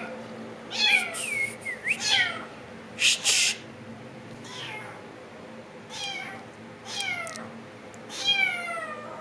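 A domestic cat meowing over and over, about six meows, each sliding down in pitch. Two short, hissy noise bursts come about three seconds in.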